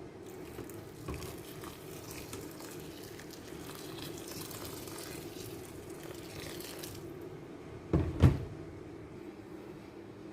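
Water running from a tap for about seven seconds, then two sharp knocks in quick succession.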